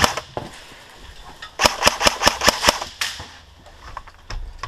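Airsoft gun firing: a single sharp shot right at the start, then a rapid burst of about nine shots between roughly one and a half and three seconds in.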